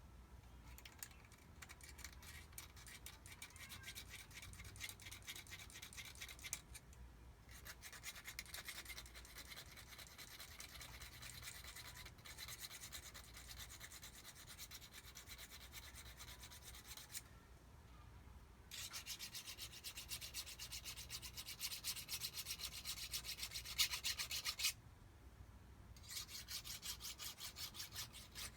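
Hand file rasping back and forth on a metal jet-ski pump part, in four runs of quick, even strokes with short pauses between them.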